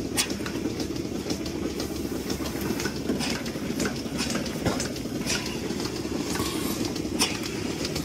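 Milking parlour machinery running: a steady low mechanical drone with short clicks and hisses scattered irregularly through it.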